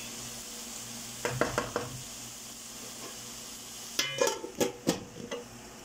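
Chopped onions, garlic and green chillies sizzling in oil in a wok, with a wooden spatula scraping through them a little after a second in. About four seconds in, a lid is set down on the pan with a short clatter of knocks.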